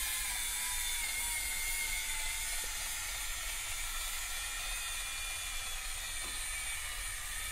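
Hurricane Spin Duster's small battery-powered motor (four AA cells) whirring steadily as it spins the fluffy brush head over light bulbs. The whine settles slightly lower in pitch over the first couple of seconds.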